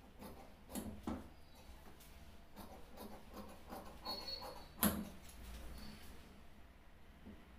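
Large tailor's shears cutting through cotton shirt fabric on a cutting table: a run of soft, irregular snips, with one sharp click about five seconds in.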